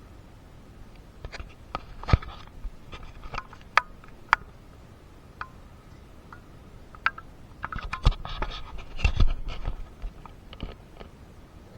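Irregular clicks, taps and scraping, with the loudest knocks about two seconds in and again around eight to nine seconds in.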